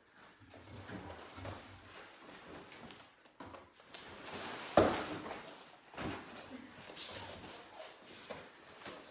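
Two people grappling on a martial-arts mat, with shuffling feet and cloth moving. About halfway through, one loud thump as a body is thrown down onto the mat, followed by a few smaller hits.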